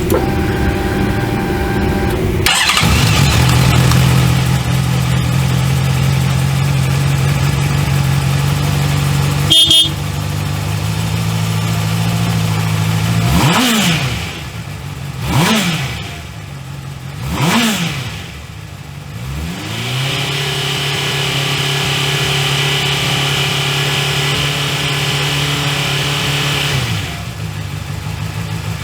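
Honda CBF600SA inline-four motorcycle engine being started: a steady starter whine, then the engine catches about two and a half seconds in and idles steadily. A short high-pitched beep comes near ten seconds. In the second half the engine is blipped three times in quick succession, then settles back to a steady idle.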